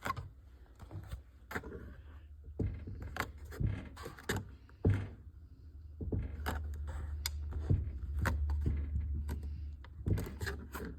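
Handling noise from a jobsite radio being looked over: a string of irregular plastic clicks, knocks and rattles, over a steady low hum that grows louder for a few seconds past the middle.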